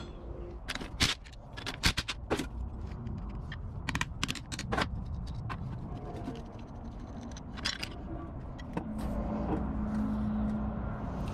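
Clinks and knocks of metal on metal as an air-cooled VW crankshaft with its connecting rods still on is lifted from the engine case and turned over by hand, the rods clanking against the crank, over a steady low hum. A second steady hum comes in about nine seconds in.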